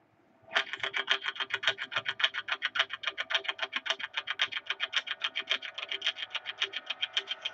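Intro music that opens with a fast, even pulsing figure, about eight sharp beats a second, starting suddenly about half a second in, with fuller music building in near the end.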